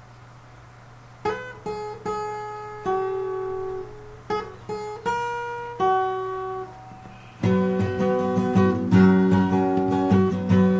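Acoustic guitar intro: a few plucked notes and chords left to ring out over a faint low hum, then fuller, louder strumming with a deeper low end comes in about seven seconds in.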